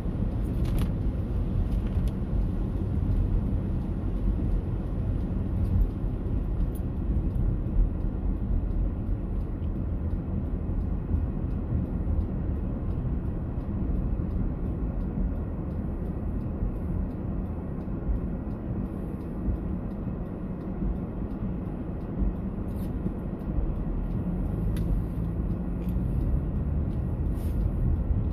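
Steady low rumble of background noise, with a few faint ticks scattered through it.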